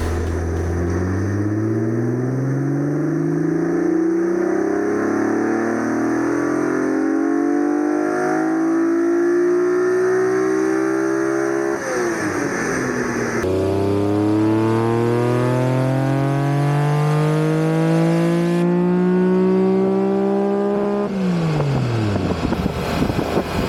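Car engine at full throttle on a rolling road dyno, its revs climbing steadily through a power run. About twelve seconds in the revs drop and a second run climbs again, then the revs fall away as the throttle closes near the end.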